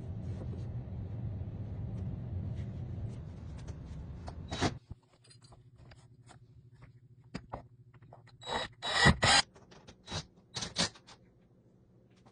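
Carpentry work: a steady low rumble that cuts off after about four and a half seconds, then scattered clicks and a cluster of sharp knocks and scrapes, as of tools and timber being handled.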